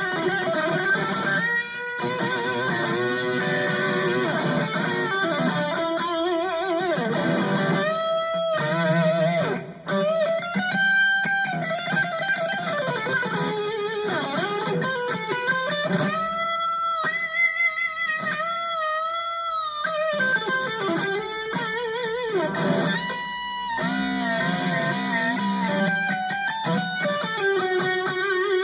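Ibanez AZES40 electric guitar played through a Cuvave Cube Baby multi-effects pedal: a lead line of held notes with wavering vibrato and bends, with a short break just before ten seconds in.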